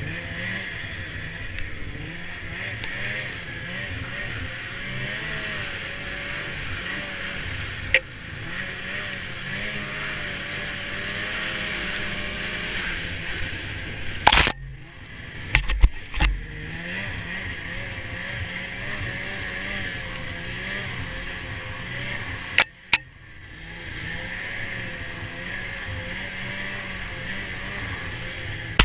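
2006 Polaris RMK 600HO snowmobile's two-stroke twin engine running on a trail ride, its pitch rising and falling as the throttle is worked, with a steady hiss from the track. A few sharp knocks break in, the loudest about halfway through and two more late on, each with a brief drop in engine sound.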